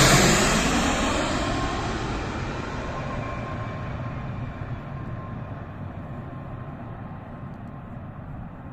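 Twin-engine jet airliner on final approach, just past overhead, its engine noise loud at first and fading steadily as it flies away toward the runway, with a faint steady whine in the middle.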